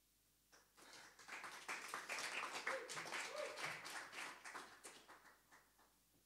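A small audience clapping after a song, starting about half a second in, fullest in the middle and dying away near the end.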